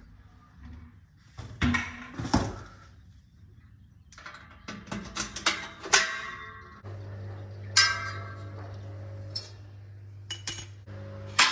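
Hard objects clinking and knocking as they are handled, a dozen or so sharp strikes, several of them ringing briefly. A steady low hum comes on about seven seconds in.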